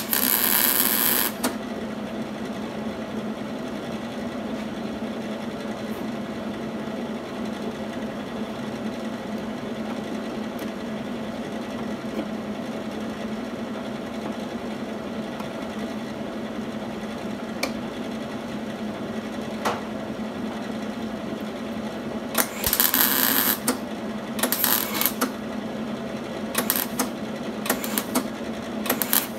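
MIG welder crackling as it lays a short weld on sheet-steel patch metal, stopping after about a second and a half. A steady hum carries on, then about twenty seconds in a string of short tack welds crackles on and off, several in quick succession.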